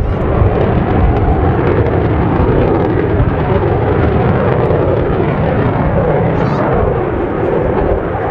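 Loud, steady jet noise from a Mitsubishi F-15J Eagle's twin turbofan engines as the fighter flies a display manoeuvre overhead.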